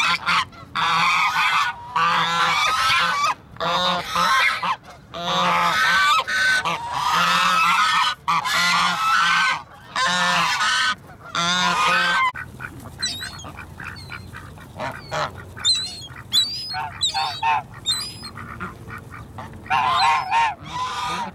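Domestic swan geese (Chinese geese) honking, loud and almost without pause for the first half, then sparser short calls with a few thin high chirps, and a quick run of honks again near the end.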